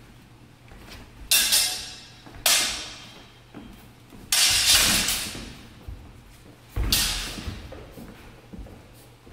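Steel sword blades, a longsword and a basket-hilted broadsword, clashing four times, each strike ringing and fading over about a second.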